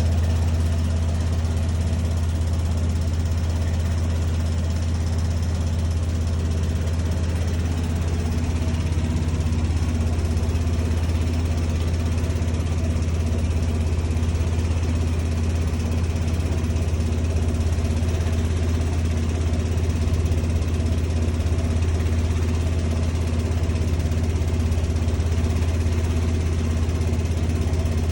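Bosch washing machine making a steady, unbroken low hum, the weird noise it is being shown for.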